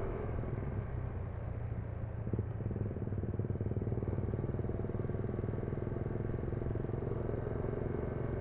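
Yamaha NMAX scooter's single-cylinder engine and CVT running steadily at low cruising speed, heard from the rider's seat as an even low hum with road noise.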